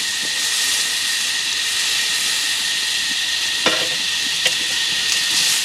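Food frying with a steady sizzle, and a couple of small clicks partway through.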